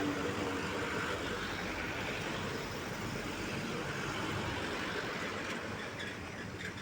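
Passing truck traffic: truck engines and tyre noise running steadily, easing off slightly near the end.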